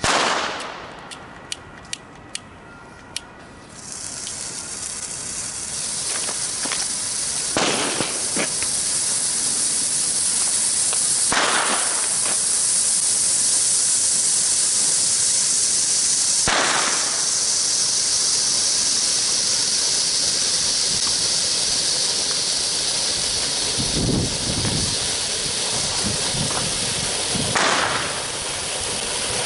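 New Year's Eve fireworks: a sharp bang and a few crackling snaps, then a loud, steady hiss of a burning firework that goes on for the rest of the time. Several more bangs sound over the hiss.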